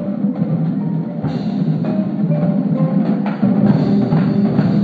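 Indoor drumline playing: marching snare, tenor and bass drums together with marimba and other mallet keyboards, a dense percussion passage that grows louder toward the end.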